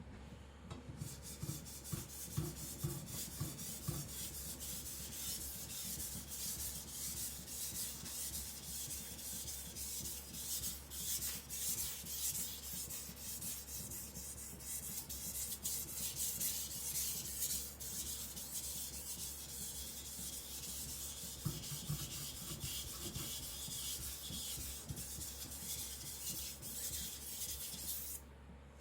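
Steel chopper blade stroked back and forth across a wet whetstone: a continuous gritty scraping that starts about a second in and stops just before the end.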